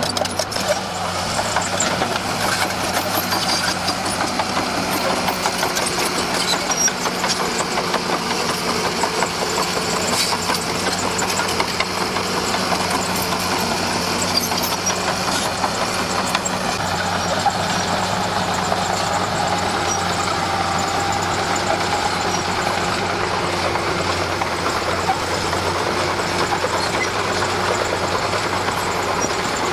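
Diesel engine of a Komatsu D41P crawler bulldozer running steadily under working load, with a constant low hum and metallic clatter.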